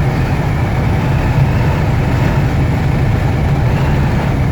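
Steady low rumble of a heavy truck's engine and road noise heard inside the cab, the truck pulling hard in a low gear against a strong headwind.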